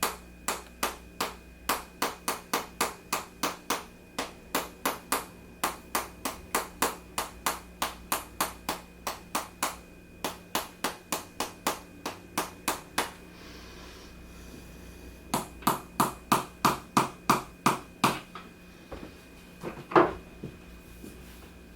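Rhythmic percussive tapping on a patient's back, about three even strikes a second. It stops about 13 seconds in, resumes in a shorter run, and is followed by one louder, sharp knock near the end.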